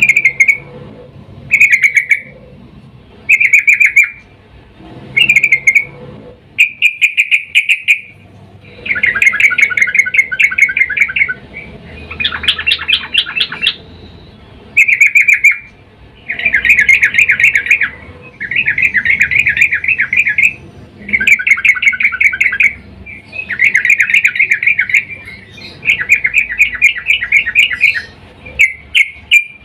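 Sooty-headed bulbul calling, which the uploader presents as a female in breeding condition calling to a male. Short calls come about every second and a half, then give way to longer, fast chattering phrases of about two seconds each.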